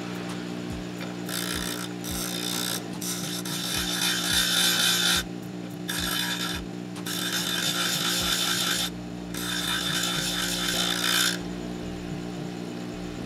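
Lotus 6-inch bench grinder running with a steady motor hum while a chisel's tip is ground on its coarse 30-grit wheel. The grinding comes in about five passes with short breaks between them and stops a couple of seconds before the end. The tip is being shaped to grind out a nick in the edge.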